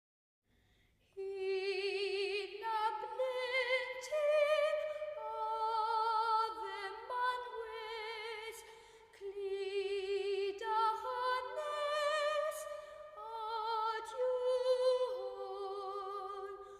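Music: a high solo voice singing held notes with a wide vibrato, in an operatic style, stepping from note to note.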